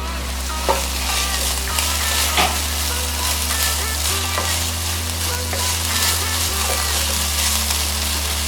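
Chopped vegetables sizzling and frying in a pot, a steady hiss with a few sharp clicks scattered through it.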